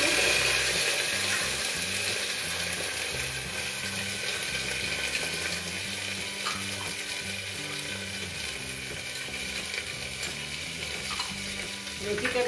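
Chopped vegetables sizzling in hot spiced oil in a pressure cooker, stirred now and then with a steel spoon; the sizzle is loudest at the start, just after they go in, and slowly settles.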